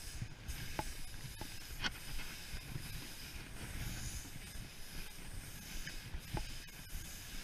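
K2 skis hissing steadily as they slide over snow on a downhill run, with a low rumble underneath and a few brief clicks.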